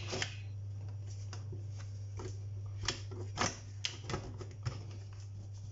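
Stainless steel pressure cooker lid being pressed and twisted onto the pot, giving irregular metal clicks and scrapes as it is hard to lock shut.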